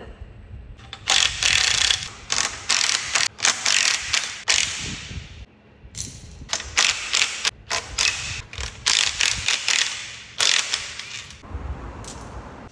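Ratchet wrench spinning bolts in repeated short runs of a fraction of a second to about a second each, with brief pauses between.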